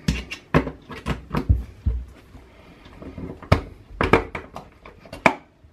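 Irregular metallic clicks and clunks from a Remington 11-87 semi-auto shotgun's action and trigger group, with a few heavier knocks in the first two seconds, as the parts are worked by hand to free a live shell stuck under the carrier.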